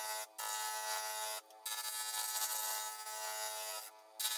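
Carbide cutter (Easy Wood Tools, round negative rake) cutting a spinning mallee burl and resin blank on a Laguna lathe to round it off: a steady scraping hiss that breaks off briefly three times as the tool leaves the wood, over the lathe's steady whine.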